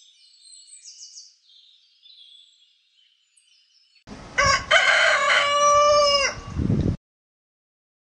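A rooster crowing once loudly, a long cock-a-doodle-doo that drops in pitch at its end and cuts off abruptly. It is preceded by a few seconds of faint, high-pitched chirping.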